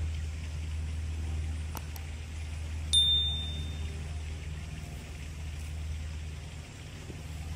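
Subscribe-button overlay sound effects: a mouse click about two seconds in, then a short high ding about a second later. Under them runs a steady low outdoor rumble.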